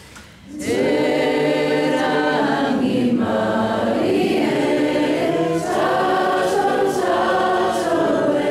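A choir singing held, harmonised notes, coming in after a brief pause at the start.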